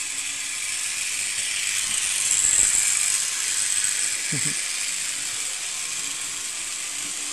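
Model railway train running on the track: a steady whir and rattle from the small electric locomotive and wheels on the rails, growing louder about two and a half seconds in and then easing off.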